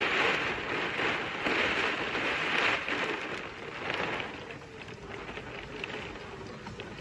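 Torrential rain, a dense steady hiss that swells and falls in strength and eases somewhat about four and a half seconds in.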